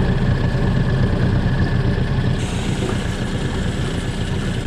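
A small boat's outboard motor running steadily at low revs, under a hiss that grows brighter about halfway through.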